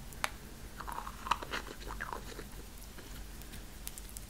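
Fingernails and fingers handling a small plastic jar and its lid: a few sharp clicks and taps among soft crackly rustles.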